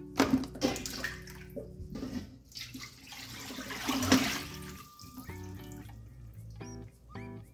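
Water splashing in a stainless steel kitchen sink as a metal bowl is rinsed under the running tap, with a few sharp splashes just after the start and a longer rush of water poured out of the bowl about four seconds in. Background guitar music continues underneath and is left alone after about five seconds.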